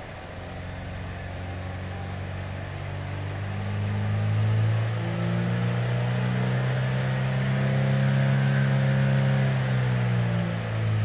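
A 2007 Chevy HHR's 2.2-litre four-cylinder engine, heard inside the cabin, is revved up from idle to around 4,000 rpm over a few seconds and held there, then falls away toward idle near the end.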